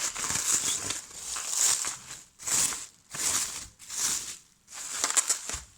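Packaging being unwrapped: a run of short rustling and crinkling bursts with brief pauses between them.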